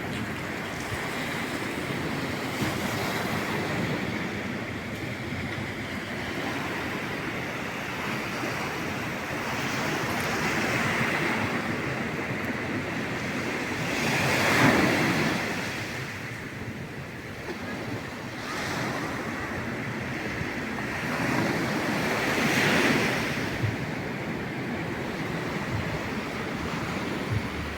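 Black Sea waves breaking and washing on the shore in winter surf, swelling louder as each wave breaks, the biggest about halfway through and another near the end. Wind buffets the phone's microphone.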